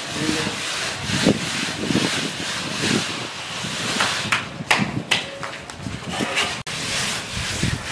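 Hand float rubbing over fresh cement render on a wall: a rough, rasping scrape repeated in strokes, with a few sharper ticks in the second half.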